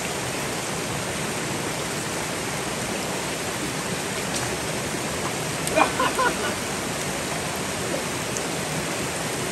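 Mountain stream rushing steadily over rocks and a small cascade. A brief, louder sound cuts in about six seconds in.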